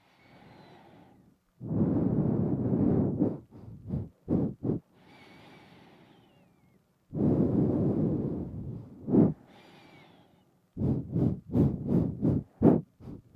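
Nose breathing close on a binaural microphone. Quiet inhales alternate with long exhales that blow on the mic, each followed by a few short puffs. Near the end comes a quick run of short sniff-like puffs, about three a second.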